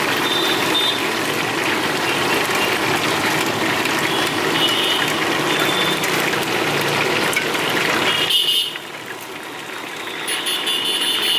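Steady outdoor traffic-like background noise, a dense hiss with brief high tones now and then. It cuts to a quieter background about eight seconds in, and the noise picks up again near the end.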